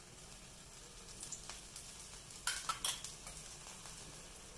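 Vegetable pudla batter frying with a faint sizzle in a nonstick pan as oil is drizzled onto it, with a few scattered clicks and a short cluster of sharp crackles about two and a half seconds in.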